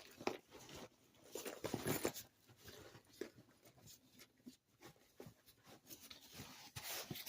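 Items being handled and packed into a handbag: faint, irregular rustles and small clicks and knocks.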